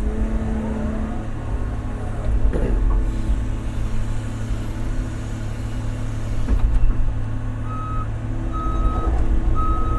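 Large excavator's diesel engine running steadily under load. From about eight seconds in, its travel alarm sounds, a high beep repeating roughly once a second.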